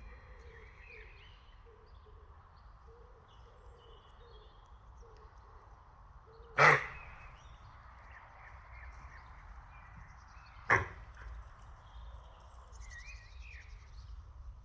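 Two sharp knocks about four seconds apart, over faint outdoor background with short repeated low calls and faint chirps, typical of birds.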